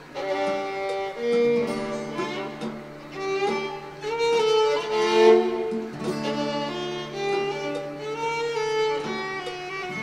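Instrumental music in a traditional Chinese style: a slow bowed string melody over a steady low drone, with plucked notes.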